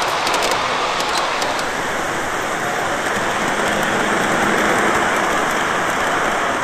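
Model trains running on layout track: a run of quick clicks as wheels pass rail joints in the first second and a half, then a steady rushing rumble as a model steam locomotive and its passenger cars roll around the track.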